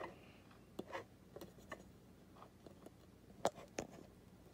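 Faint handling noise from a paper certificate in a clear plastic holder: scattered light clicks and rustles, with one sharper click about three and a half seconds in.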